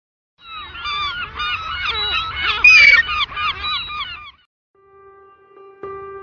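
A flock of birds calling in a dense, overlapping chorus of short repeated calls for about four seconds. After a brief gap, soft music with long held notes begins.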